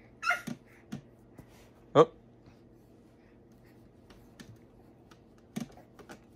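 A baby's few brief vocal sounds, the loudest a short sharp one about two seconds in, with smaller ones near the start and near the end.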